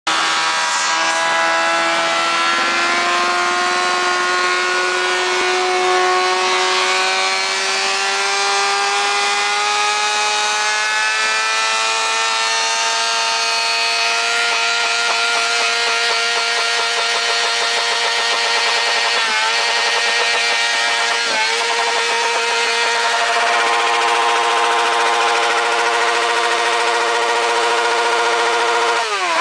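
Motorcycle engine held at high revs, its pitch climbing slowly for the first dozen seconds and then holding steady, with brief dips as the throttle is blipped twice near the twenty-second mark and again at the very end.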